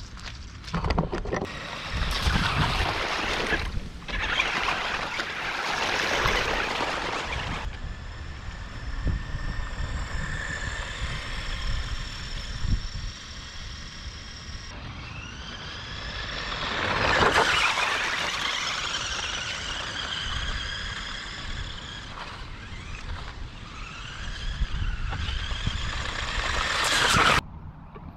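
Bwine C11 RC truck driving on wet ground. For the first several seconds there is a rough rushing noise from its tyres, then the high whine of its twin electric motors, rising and falling in pitch with the throttle and loudest about two-thirds of the way in. The sound cuts off suddenly near the end.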